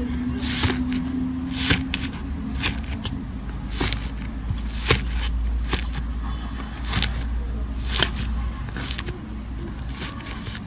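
Slime being squeezed and worked by hand, giving irregular sharp pops and crackles about once or twice a second.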